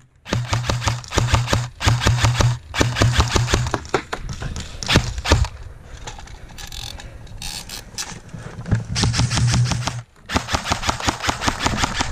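Airsoft rifle firing rapid full-auto bursts, several in a row with short breaks, and a quieter stretch with scattered clicks in the middle.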